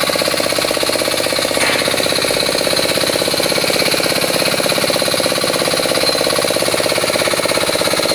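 Small single-cylinder engine of a two-wheel hand tractor running steadily with a rapid pulsing beat, working under load as its cage wheels churn through a flooded rice paddy to puddle the soil for planting.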